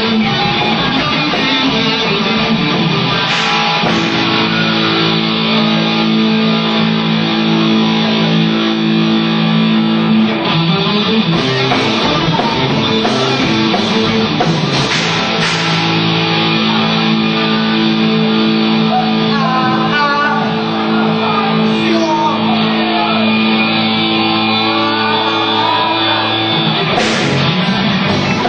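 Live rock band playing electric guitars: a lead guitar bends notes over held chords, with a few cymbal crashes.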